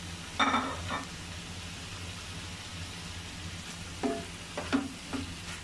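Shrimp and vegetables sizzling in a frying pan while a wooden spatula stirs them. There is one loud scrape about half a second in, then a few quick knocks and scrapes of the spatula against the pan near the end, over a steady low hum.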